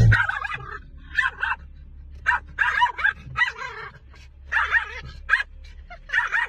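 Small fluffy dog barking in quick runs of high-pitched yapping barks at a moving windshield wiper, over a low steady hum.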